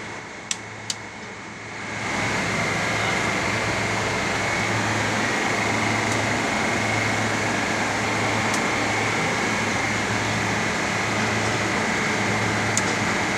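Two sharp clicks, then about two seconds in a walk-in freezer's condensing unit with a Bitzer compressor comes on and runs steadily, with a low hum and a thin high whine.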